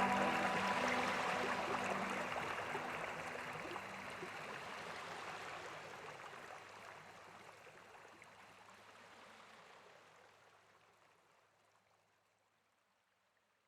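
Water from a tabletop fountain waterfall splashing and trickling steadily, fading out gradually to silence over about twelve seconds.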